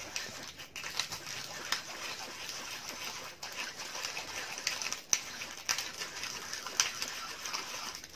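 Hand pepper mill grinding black peppercorns: a steady, dry crunching crackle with many small clicks.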